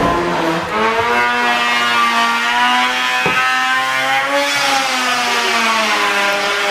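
Corded handheld power tool's electric motor running with a steady whine that drifts slightly up and down in pitch, with a single knock about three seconds in.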